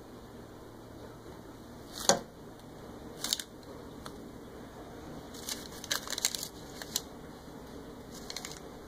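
Rustling and crinkling of a non-woven fabric shopping bag as a cat shifts about with its head inside it: short crackly bursts, one sharp rustle about two seconds in, another a second later, then a cluster of several near the middle and a faint one near the end.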